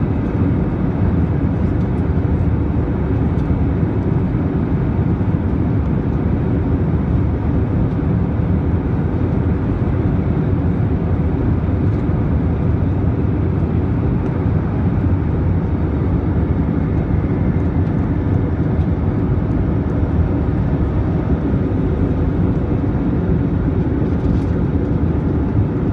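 Steady low rush of jet engines and airflow heard inside an airliner's cabin while it climbs after takeoff.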